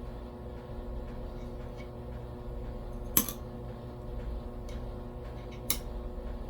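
Two sharp light clicks, about three seconds in and again near the end, of coins being handled, over a steady low hum.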